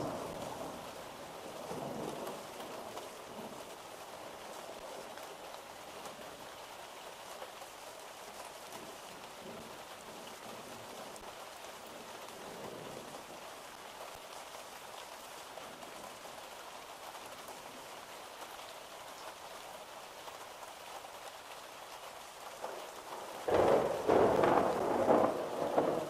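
Steady rain with thunder rolling: faint rumbles near the start and about halfway through, then a much louder roll of thunder breaking in near the end.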